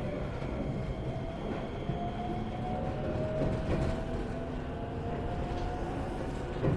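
Iyotetsu 3000 series electric train running, heard inside motor car MoHa 3103: the traction motor whine rises slowly in pitch as the train gathers speed over a steady rumble of wheels on rail, with a thud from the wheels crossing a rail joint right at the start and another near the end.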